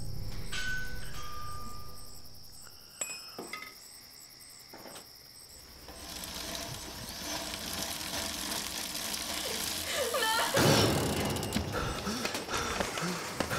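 Music fades out. A few light metallic clinks follow, from a hand tool against a bicycle's brake caliper. A swelling wash of noise then builds to a sudden loud burst about eleven seconds in.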